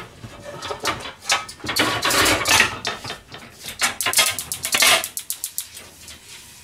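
Pots and pans clattering: a frying pan and a metal-rimmed pan lid are handled and set down on a gas hob, with a quick run of knocks and clanks that is busiest in the middle and dies down near the end.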